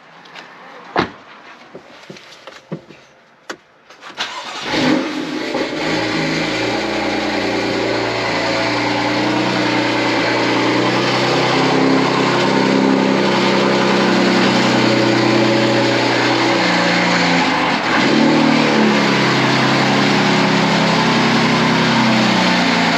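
A few light clicks, then the BMW F80 M3's twin-turbo S55 inline-six, fitted with an M Performance exhaust, starts about five seconds in and keeps running. It is being run with the fuel pump relay pulled, so that it burns off the fuel left in the system.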